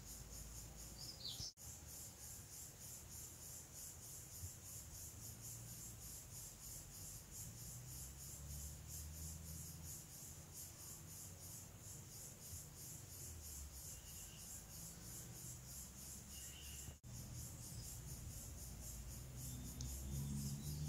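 Faint insect chirring in the background: a high trill pulsing at an even rate, with a low uneven rumble beneath. The sound drops out briefly twice, about a second and a half in and near the end.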